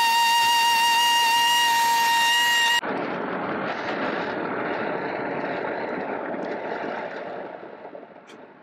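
A 1920s Ingersoll-Rand Model B12 pneumatic circular saw, driven by its triple-piston air motor, running with a steady high whine. A little under three seconds in, the whine stops abruptly, leaving a rushing noise that slowly fades away.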